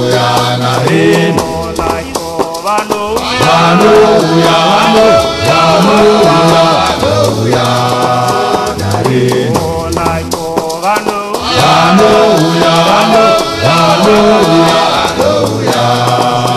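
Zimbabwean gospel band music: a bass line under melodic lines that bend in pitch, over fast, steady percussion.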